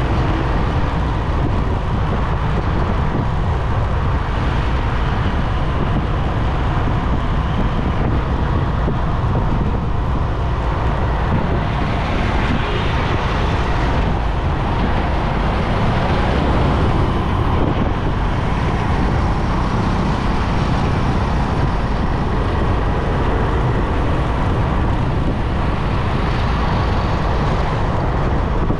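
Steady wind and road noise from a moving motorcycle: air rushing over the microphone with the low rumble of traffic around it.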